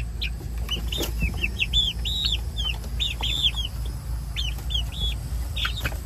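Young turkey poults and chicks peeping: a run of short, high peeps, each rising and falling, a few a second.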